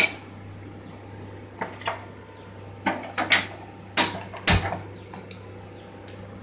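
A few short metallic clinks and knocks of kitchen utensils against an aluminium pressure cooker on a gas stove, sparse at first, with a louder pair of knocks about four seconds in, the second one dull and heavy.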